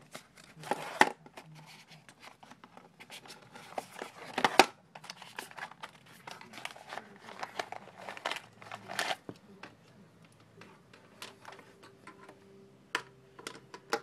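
Packaging being handled as a boxed AV cable set is unpacked: the cardboard box is opened and the plastic wrapping around the cables crinkles and crackles in irregular bursts. The loudest crackles come about a second in and at about four and a half seconds.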